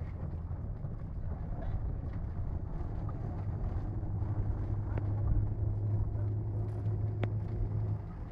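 Park minibus driving along with a low rumble, joined about halfway through by a steady low hum that stops just before the end. Two sharp clicks sound in the second half.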